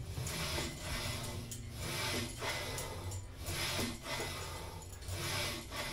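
Seated cable rows on a homemade cable pulley machine: the steel cable rubbing through its pulleys in a rhythm of pulls about once a second, with breathing.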